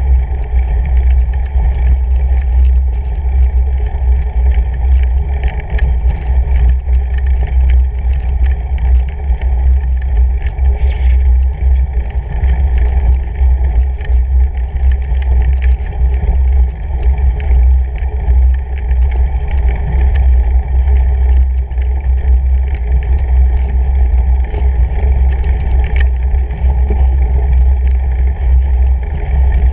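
Fatbike riding over a snow-covered trail, heard through a bike-mounted camera: a loud, steady low rumble from the fat knobby tyres and frame, with scattered small clicks.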